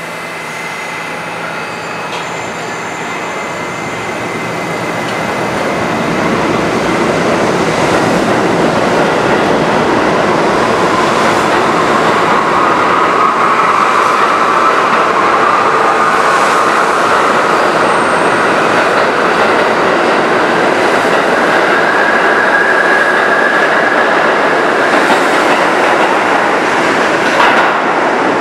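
R68 subway train pulling out of an underground station. The noise of its wheels on the rails builds over the first several seconds into a loud, steady rumble, with a thin squeal that rises slowly in pitch through the middle as the train runs into the tunnel.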